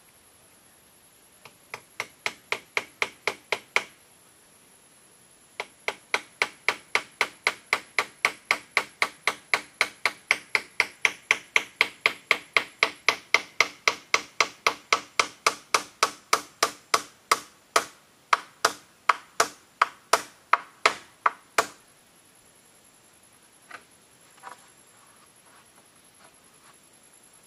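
Hammer blows on split-bamboo roofing as it is fixed to the hut's pole frame: a short run of about eight strikes, a pause, then a long steady run at about three strikes a second, ending in two light knocks.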